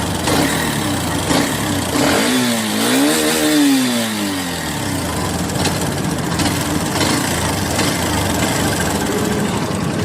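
Hero Xtreme 125R's single-cylinder engine running with a mechanical noise, revved once about two seconds in and settling back to idle. The owner blames a tappet that has worked loose again and suspects a loose gearbox.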